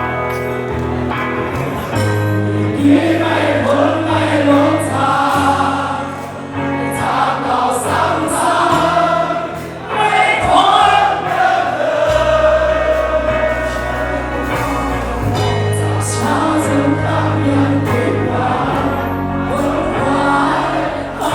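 Live singing of a slow pop song over a backing track with steady sustained bass notes.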